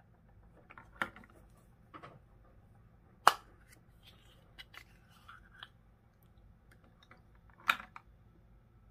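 Hard plastic surprise-egg capsules clicking and knocking as they are handled and one is opened, with a few sharp clicks, the loudest about three seconds in, and light tapping between.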